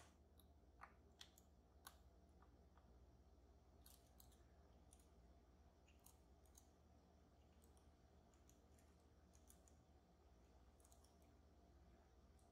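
Faint, scattered small clicks and ticks of lock picks working inside an EVVA Dual slider lock, with a few slightly louder clicks in the first two seconds.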